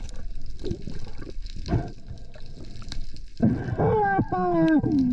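Water sloshing and crackling around the microphone with scattered clicks. After about three and a half seconds a loud drawn-out pitched sound takes over, sliding down in pitch.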